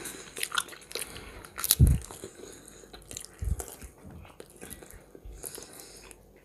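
Close-miked eating sounds: chewing and biting, with wet mouth clicks and the crackle of fingers picking at hot-smoked fish. One louder thump comes a little under two seconds in.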